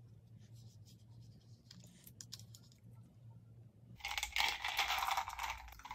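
Candy wrapper being torn open and crinkled in the fingers. A dense crackling starts about four seconds in and lasts nearly two seconds, with a few faint ticks of handling before it.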